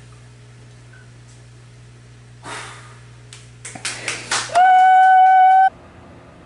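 A loud, steady electronic beep of one flat pitch lasting about a second, cut off abruptly. Before it come a short soft rush of noise and a quick run of clicks.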